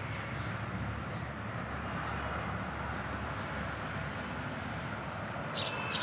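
Steady outdoor background noise, a low rumble with hiss. A short high-pitched chirp comes near the end.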